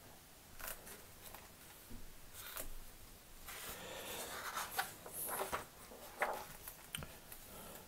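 Pages of a large hardcover book turned by hand: a few soft swishes and rustles of paper as the leaves slide over one another.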